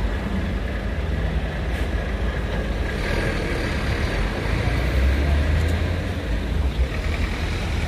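Steady low rumble of road vehicles, with a faint steady high tone running through it.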